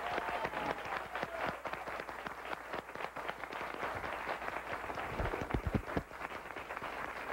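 Studio audience applauding steadily, with a few low thumps about five seconds in.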